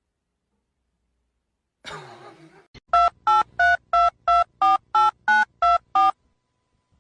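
Telephone keypad dialing a number: ten short two-note touch-tone beeps, about three a second. A brief rustle and a click come just before the beeps.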